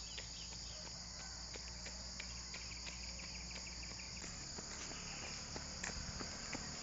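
Steady, high-pitched insect chorus from roadside vegetation, with faint scattered ticks in the second half.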